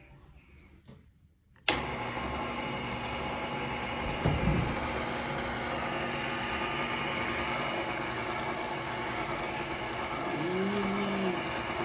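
Electric stand mixer switched on a little under two seconds in, its motor then running steadily as it mixes the batter.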